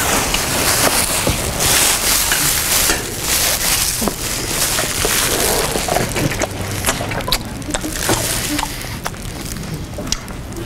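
Loud chewing of crunchy food close to the microphone: a dense, continuous crackle of crunches with sharp clicks scattered through it.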